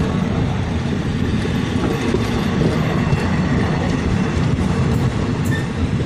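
Wheels and bogies of a train of Thai air-conditioned passenger coaches running on the rails close by, a steady rolling rattle with no let-up. The coaches are running empty with their on-board engines switched off.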